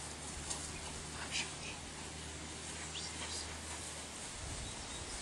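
Quiet outdoor pasture ambience: a steady low hum under a faint hiss, with a few faint short chirps.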